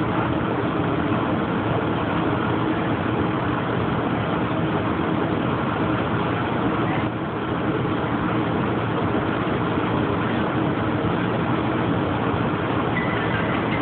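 Santa Fe 3751, a 4-8-4 steam locomotive, standing with steam up, giving off a steady loud hiss and rumble.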